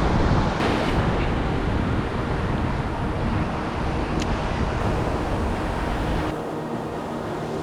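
Wind buffeting the microphone over the wash of surf on the beach. About six seconds in, the wind rumble drops away and a faint steady hum is left.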